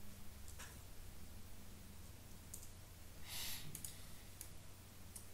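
A few faint, separate computer mouse clicks, with a short breath about three seconds in, over a low steady hum.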